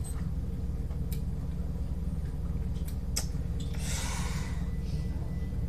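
A few light clicks and a brief scraping rustle of a floppy drive and its screws being worked into a computer case, over a steady low hum.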